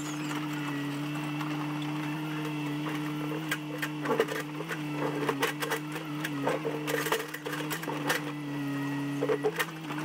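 Backhoe's diesel engine running at a steady pitch, with scattered knocks and clatters from about three and a half seconds in.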